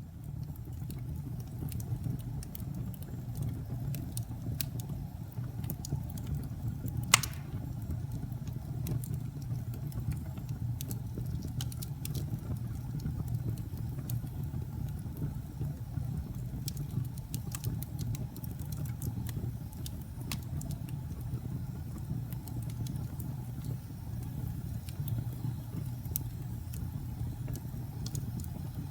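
Wood fire burning in a fireplace: a steady low rumble from the flames with scattered crackles, and one sharp, loud pop about seven seconds in.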